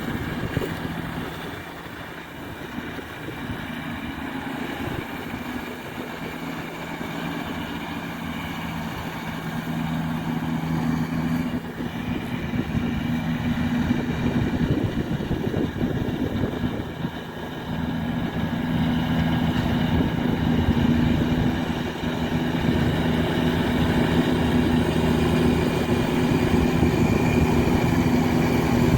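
Tractor engine running steadily, getting louder as it draws nearer, with a brief drop in level about two-thirds of the way through before it comes back louder.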